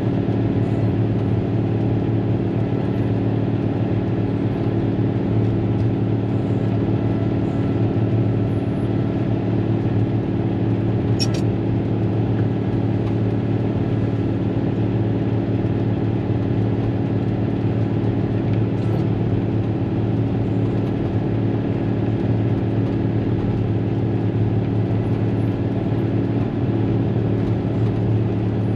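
Cat motor grader's diesel engine running steadily, heard from inside the cab as the machine works along the road. A single sharp click about a third of the way through.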